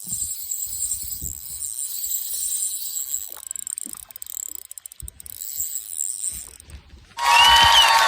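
Light mechanical clicking and handling knocks from fishing tackle, typical of a spinning reel being wound. About seven seconds in, a sudden loud sound with several held pitches cuts in.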